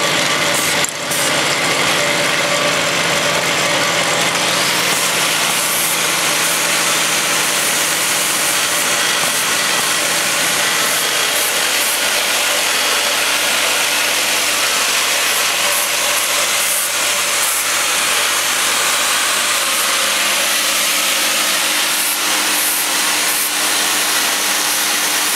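Automatic bottle-capping machine and its vibratory cap feeder running: a steady mechanical whirr and rattle. A low hum under it fades out about eleven seconds in.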